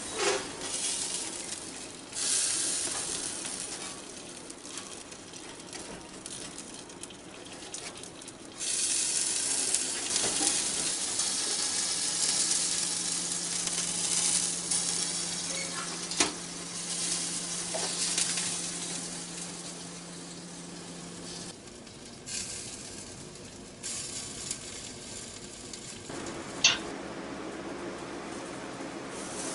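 A wood stove with a box oven on top, sizzling with a steady hiss, broken by a few sharp knocks and clicks. A low steady hum joins in for several seconds in the middle.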